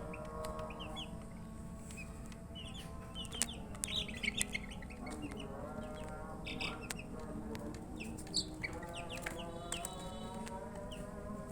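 Baby chicks peeping, many short high chirps in irregular clusters over a lower, steadier layer of calls; the uploader puts the chirping down to thirst for drinking water.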